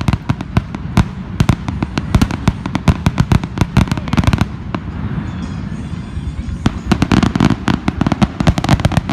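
Fireworks going off in a rapid run of bangs and cracks, several a second, thinning out a little about two-thirds of the way through and then coming thick again.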